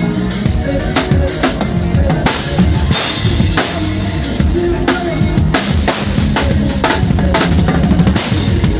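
Live drum kit played hard with a band: rapid kick and snare hits and repeated cymbal crashes over sustained bass and keyboard notes.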